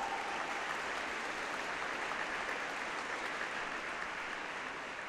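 Audience applauding steadily, tailing off slightly near the end.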